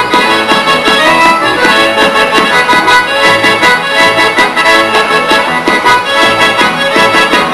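Accordion playing a lively traditional folk dance tune with a steady beat.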